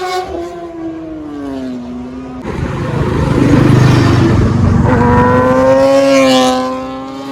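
Kawasaki ZX-10R inline-four sport bike with a Racefit aftermarket exhaust passing by. The engine note falls in pitch over the first two seconds. A loud rush of noise follows about halfway through, then the engine note climbs and holds near the end.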